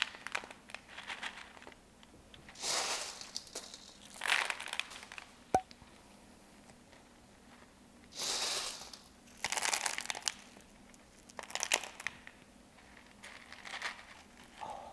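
LECA clay pebbles crunching and rattling in a small plastic pot as cuttings are pushed in and shifted among them, in several short bursts, with one sharp click about five and a half seconds in.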